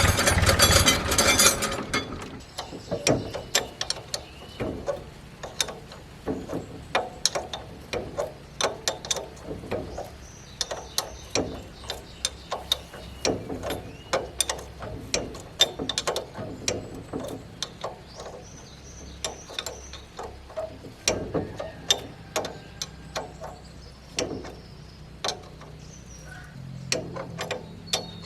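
Hand tools at work on a farm machine's metal parts: a loud burst of noise in the first two seconds, then irregular clicks and light knocks, a few a second.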